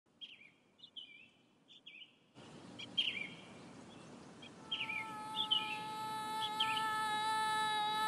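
Small songbirds chirping, with quick downward-sweeping tweets, over a steady outdoor ambience that comes in about two and a half seconds in. In the second half a steady pitched tone with overtones enters and slowly grows louder.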